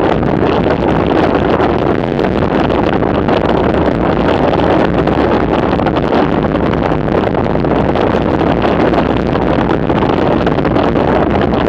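Steady wind buffeting the camera microphone as a bicycle descends at about 58 km/h: an even, loud rushing noise with no distinct events.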